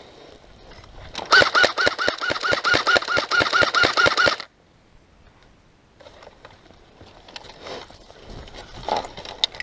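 Airsoft electric gun firing one full-auto burst of about three seconds, a fast even rattle of repeated shots that stops abruptly, with quieter scattered rustling after it.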